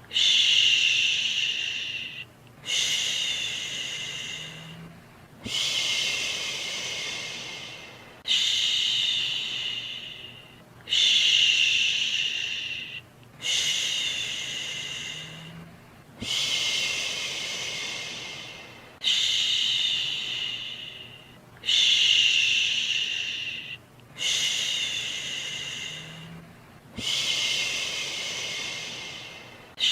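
A soothing shushing 'shhh', repeated about every two and a half to three seconds. Each shush starts sharply and fades away, about eleven in all, with a faint steady hiss underneath: the shushing used to calm a baby to sleep.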